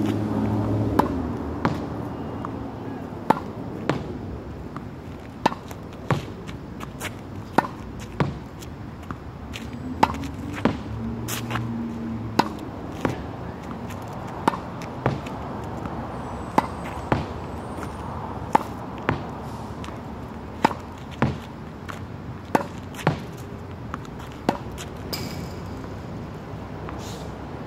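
Tennis ball rallied against a practice wall: a steady run of sharp pops from racket strikes and the ball hitting the wall. They often come in pairs about half a second apart, with one exchange every second or two.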